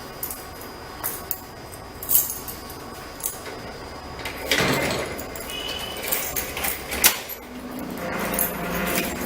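Small metal parts clicking and clinking in a scattered run of sharp ticks, with a louder rustling, scraping stretch about halfway through and a low steady hum coming in near the end.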